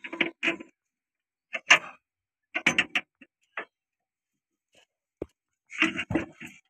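Short metallic clicks and clinks in irregular clusters as hydraulic pump parts are handled and set into a Massey Ferguson 1035 tractor's cast hydraulic housing, with a couple of duller knocks near the end.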